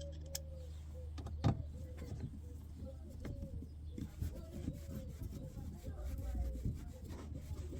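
Small screws being driven by hand into a VW Golf Mk4 door handle trim: faint clicks and short squeaky chirps as the screwdriver turns, over a low steady hum.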